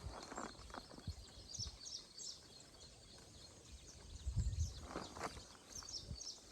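Small birds chirping, many short high calls overlapping, faint in the open air. A few soft low rumbles come and go, about half a second in and again around four to five seconds.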